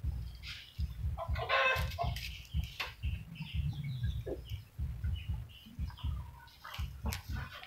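Chickens clucking, with one louder call about one and a half seconds in, over an irregular low rumbling and thumping.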